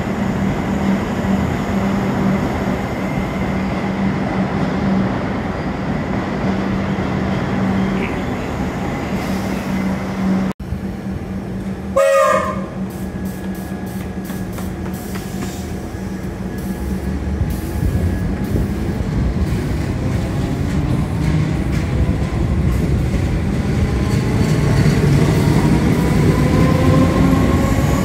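Steady low hum of an electric train standing at a station. After a cut, a Comeng electric suburban train gives one short horn blast, then moves off past the platform with its traction motor whine rising in pitch as it accelerates.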